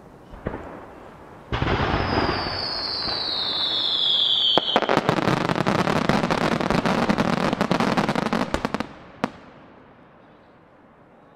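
Finale starmine barrage of aerial fireworks: a sudden burst of blasts about a second and a half in, with a whistle falling in pitch over the next few seconds, then a dense run of rapid bangs and crackling that stops about nine seconds in, followed by one last bang.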